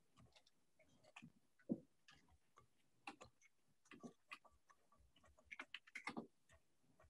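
Faint, irregular clicks and knocks of a spoon against a mixing bowl while stirring banana bread batter, wet ingredients being worked into the flour, with a quick flurry of knocks near the end.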